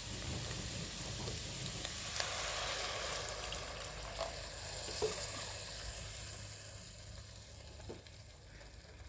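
Grated carrots in ghee in a kadhai sizzling as milk is added and stirred in, with a few light taps of the spoon. The sizzle dies down over the last few seconds.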